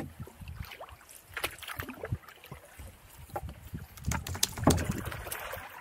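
Canoe being paddled across choppy water: irregular splashes of paddle strokes and small waves slapping against the hull, over an uneven rumble of wind on the microphone, loudest about four to five seconds in.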